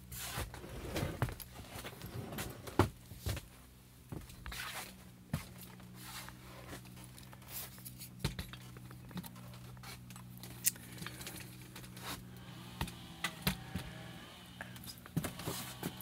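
Close rustling and scattered sharp clicks from handling, over a steady low hum.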